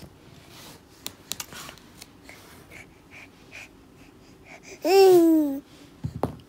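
Eight-month-old baby's soft breathy sounds, then about five seconds in one loud squeal that falls in pitch. A short thump follows near the end.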